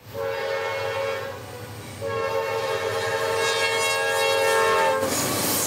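Freight train's diesel locomotive air horn sounding for a grade crossing: a shorter blast, a short break, then a long blast of about three seconds, all on one multi-note chord. As the horn stops near the end, the noise of the passing locomotives takes over.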